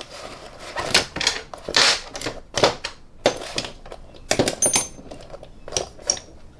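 Metal hand tools, 1/4-inch-drive sockets and extensions, clinking and clattering as they are handled and packed into a tool bag: a string of irregular clicks and knocks, one with a brief metallic ring about halfway through.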